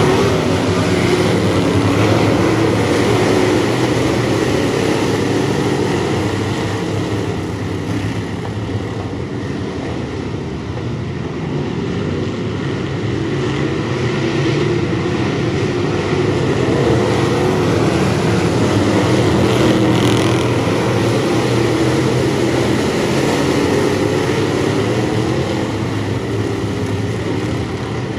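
A pack of Bomber-class dirt-track stock cars racing, their engines running loud and continuous. The sound swells as the pack passes, eases off around ten seconds in, and builds again later.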